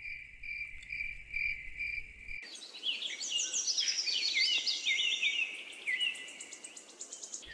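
Crickets chirping in a steady pulse, about two or three chirps a second, cut off abruptly after about two and a half seconds by songbirds twittering with many quick rising and falling chirps: a night-to-dawn change of ambience.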